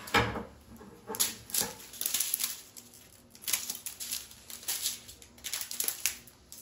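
Small plastic zip bags of diamond painting drills crinkling in short, irregular rustles as they are handled and laid down on a wooden table.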